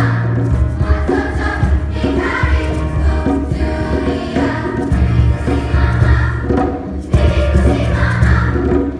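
Large elementary-school children's choir singing in phrases, with a strong low bass underneath.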